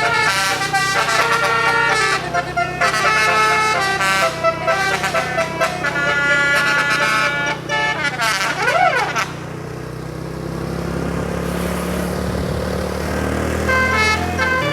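Bus 'telolet' multi-tone air horn playing a quick tune of short changing notes for about nine seconds, then stopping. The bus engine keeps running underneath, and the horn notes start again near the end.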